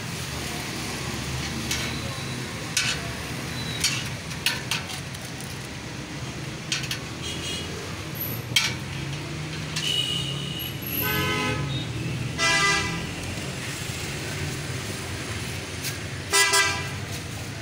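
Road traffic running steadily, with a few short vehicle-horn toots; the loudest comes near the end. Sharp clicks and scrapes of a metal spatula on a steel griddle come in between.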